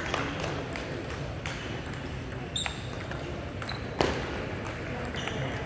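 Table tennis balls clicking off tables and rackets at several tables at once: scattered, irregular clicks, with a sharper knock about four seconds in.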